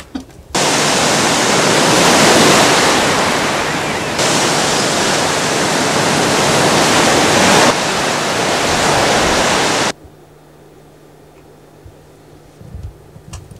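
Rough sea surf with wind, a loud, steady rushing noise that stops abruptly about ten seconds in, leaving only a faint low hum.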